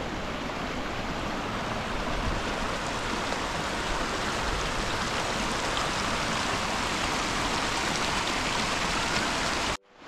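Rushing stream water, a steady even rush that cuts off abruptly near the end.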